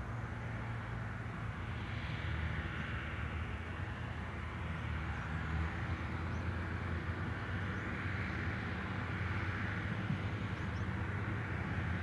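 John Deere 6210R tractor's turbocharged six-cylinder diesel engine running steadily under load as it pulls a five-furrow reversible plough, gradually getting louder as the tractor approaches.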